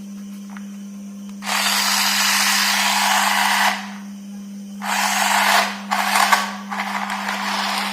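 Small electric motor of a battery-powered toy train whirring in bursts: one of about two seconds, then shorter ones, and running on steadily near the end. A steady low hum sits under it throughout.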